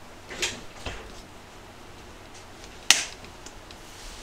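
A few short clicks and knocks of a bottle and a small measuring cup being handled over a stainless-steel counter, the loudest a single sharp click about three seconds in.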